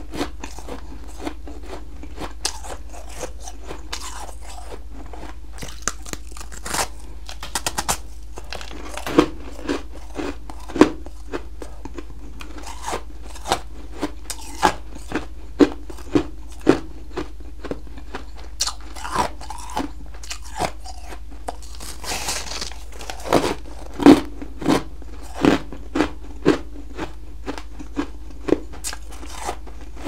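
Close-up crunching and chewing of chunks of refrozen blended humidifier freezer frost, a run of crisp, irregular crunches about one to two a second as each bite is broken down.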